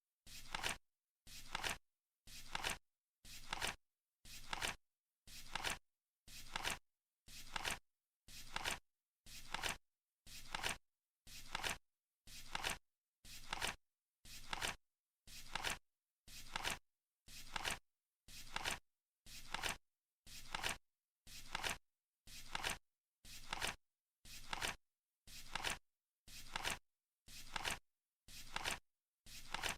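Flip clock cards flipping over once a second: a steady run of short, identical flaps, each swelling to a sharp click, with silence between.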